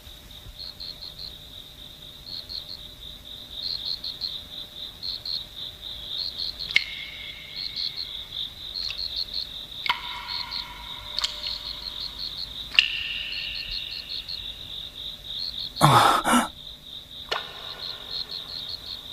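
Crickets chirping in short, regular pulses, a night-time ambience sound effect. Soft held ringing tones come in a few times over it, and a brief louder rush of sound breaks in near the end.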